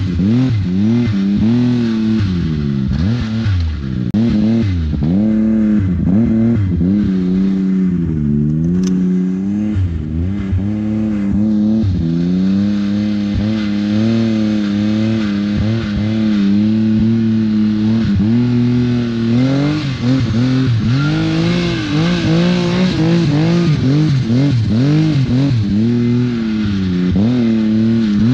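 Two-stroke mountain snowmobile engine running under load in deep powder, its pitch rising and falling every second or two as the throttle is worked. It holds a steadier, higher pitch for several seconds near the middle.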